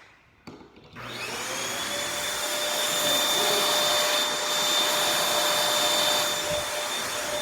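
Vacuum cleaner motor started by making its hand-wired prong connection: a click about half a second in, then the motor whirs up to speed, runs steadily with a high whine over airflow hiss, and begins to wind down with a falling whine near the end.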